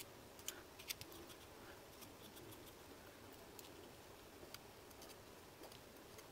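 Faint small clicks and light scratching from a plastic poking tool working small die-cut paper pieces free, a few sharp ticks standing out over near silence.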